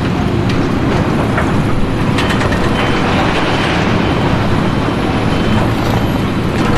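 A large engine running steadily and loudly, with a few sharp clanks.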